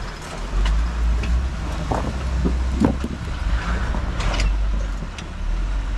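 Jeep Wrangler Rubicon's engine running low and steady as it rock-crawls over boulders, with a few short knocks from the tyres and chassis on the rocks.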